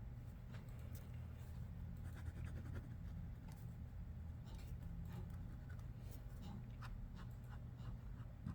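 Pencil sketching on paper: irregular short scratchy strokes in little clusters, over a steady low hum.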